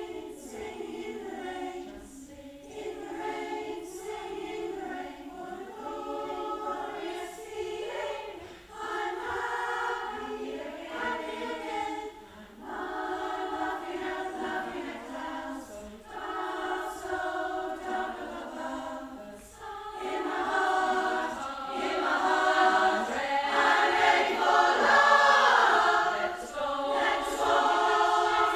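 Women's choir singing in harmony, unaccompanied, in sustained sung phrases that swell louder about two-thirds of the way through.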